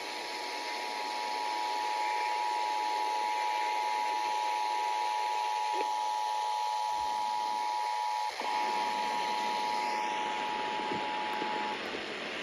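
Emergency Alert System attention signal: two steady tones of about 853 and 960 Hz sounding together. It drops out briefly about two-thirds of the way through and stops shortly before the end. Under it runs a steady hiss.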